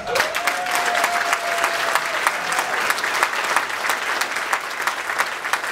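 Audience applauding steadily, many hands clapping at once. A single held high note rings over the clapping for about the first two seconds.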